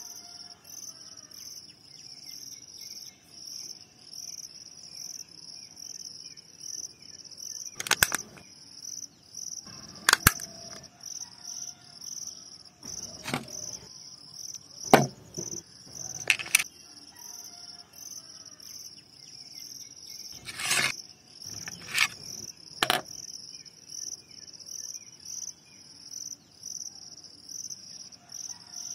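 Insects, crickets by the sound, chirping in a steady pulsing high trill, with several sharp clicks or knocks scattered through the middle.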